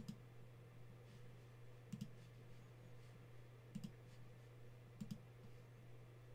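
Faint computer mouse clicks in quick pairs, four times about one to two seconds apart, over a steady low hum.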